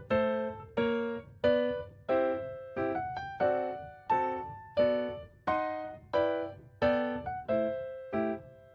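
Background music: a keyboard playing a slow, even sequence of single struck chords, each note ringing and fading before the next, about one and a half a second.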